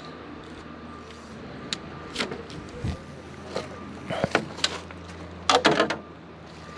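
Inside a truck cab: a low steady engine hum, with scattered clicks and rustling handling noises on top. The loudest is a quick cluster of clatter about five and a half seconds in.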